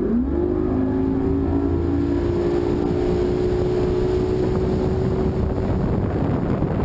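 Bass boat outboard motor throttling up to run: its pitch rises over the first half-second, then holds steady. The engine tone gives way to a steady rush of wind and water as the boat gets under way.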